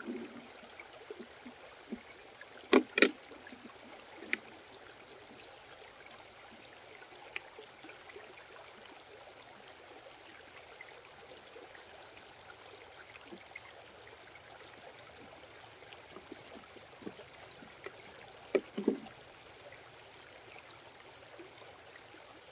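Quiet steady background hiss with a faint high whine running through it, broken by a few short sharp knocks: a loud pair about three seconds in, single ones soon after, and another pair near the end.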